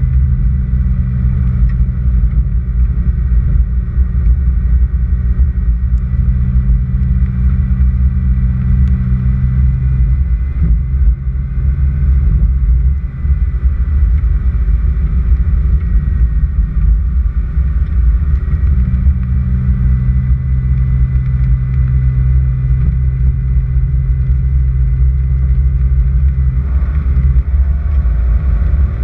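A vehicle's engine running steadily with tyre noise on a dirt road, heard as a constant deep rumble from a hood-mounted camera. The engine's hum eases off about ten seconds in and comes back about nineteen seconds in.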